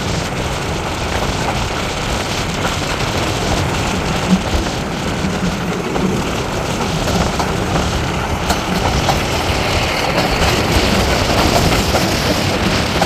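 Moving diesel-hauled train heard from a coach window: a steady rush of wind on the microphone with wheel-and-rail running noise, growing a little louder toward the end.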